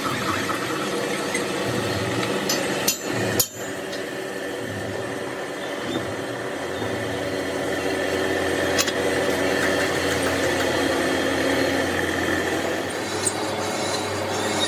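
Pillar drill press running steadily while drilling steel bosses on a truck brake drum, with a few sharp metal clinks, two about three seconds in and one near nine seconds.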